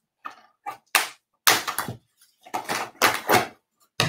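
Mail packaging being handled and pulled open by hand: several short bursts of rustling with gaps between them.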